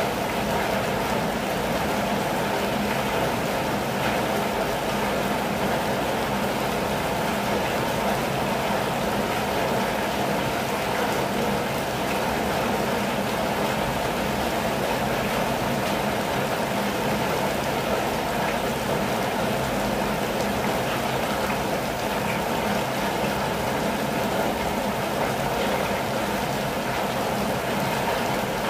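Steady rain falling on a campervan's roof and windows, heard from inside: an even, unbroken hiss with no let-up.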